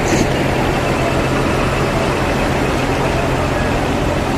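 Large diesel truck engines idling steadily, a constant low hum.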